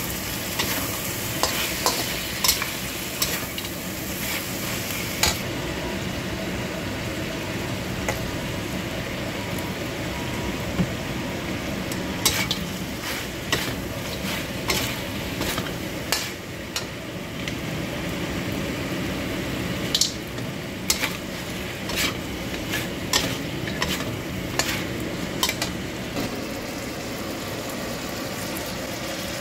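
Chicken pieces sizzling in a hot wok while a metal wok spatula stirs and scrapes them, with frequent sharp clinks of the spatula against the wok.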